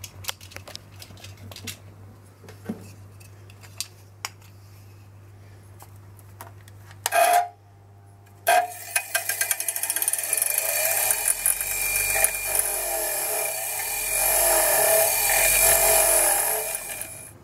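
Bench grinder's electric motor humming steadily with a few clicks. From about halfway, a metal coolant housing is pressed against the spinning wire wheel, scraping off old gasket residue. The scraping is loudest near the end.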